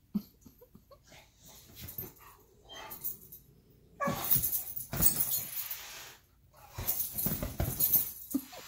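Dog whimpering in short, uneven bursts, with two louder stretches, one about four seconds in and one near the end.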